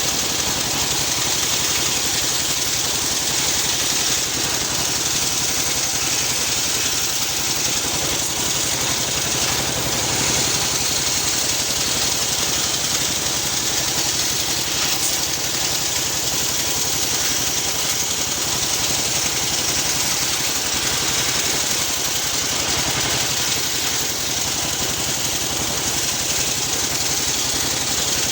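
Homemade circular sawmill running steadily: an engine drone under the high, even hiss of the spinning saw blade.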